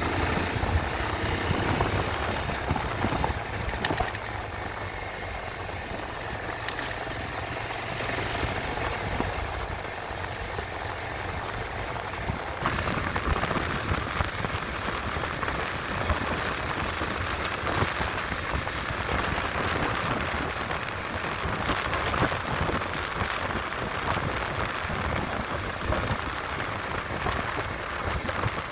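Yamaha Serow 225's single-cylinder engine running while riding, mixed with rushing wind noise. The hiss grows louder about halfway through.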